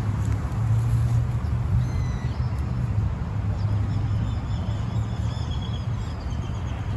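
A steady low rumble throughout, with small birds chirping and whistling faintly from about two seconds in until near the end.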